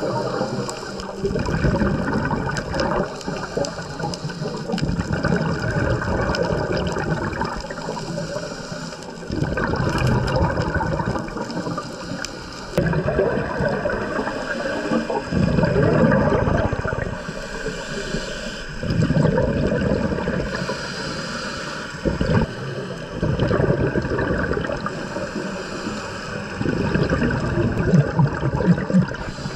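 Water gurgling and rushing, swelling in surges every few seconds.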